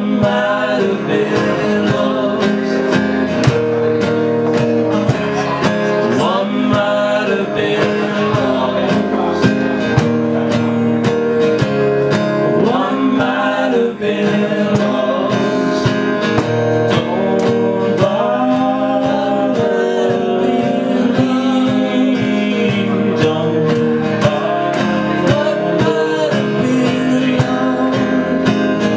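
Live acoustic guitar strummed as an accompaniment while several men sing together into microphones.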